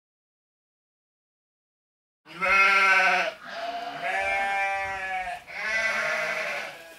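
Three long, wavering bleats, like a sheep or goat, starting about two seconds in after silence.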